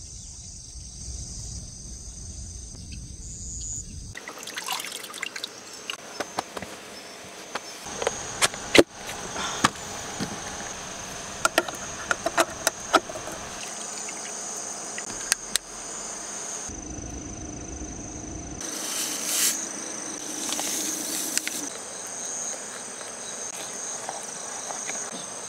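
Insects chirping steadily in the grass, a high continuous trilling, with scattered sharp clicks and knocks of things being handled and two short rustles near the middle.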